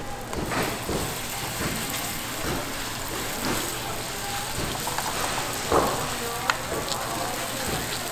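Green laver (parae) pancake batter sizzling in hot oil in a nonstick frying pan as it is spread out with spoons, the hiss thickening just after the start as the batter hits the oil. There is a sharp click about six and a half seconds in.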